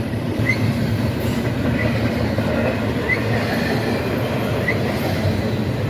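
Freight train rolling past with a steady rumble of wheels on rail. A short, high squeak recurs about every second and a half.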